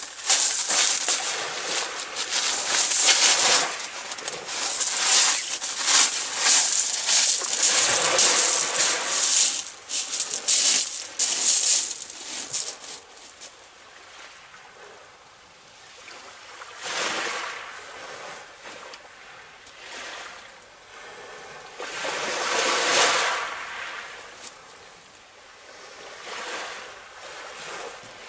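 Sea waves breaking and washing over a shingle beach. The noise is louder and busier for the first dozen seconds, then quieter, with a wave surging and falling back about every five seconds.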